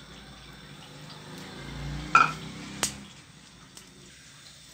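Handling of a non-stick pan with cooking oil just poured in and a wooden spatula in it: a faint low rumble swells toward the middle, then two short knocks land about two seconds in and again just before three seconds, the second the sharper.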